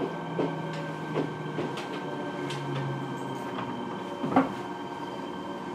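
Inside a Fukuoka City Subway 1000N series car: a steady hum from the car's equipment with scattered light clicks and knocks, the loudest a sharp knock about four seconds in.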